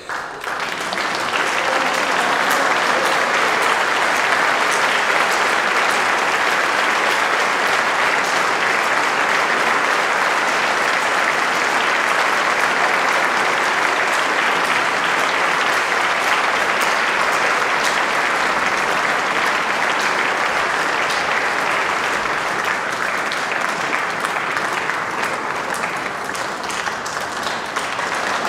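A large seated audience clapping, breaking out suddenly and then holding steady.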